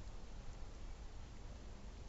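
Quiet background ambience: a steady low rumble with a faint tick or two.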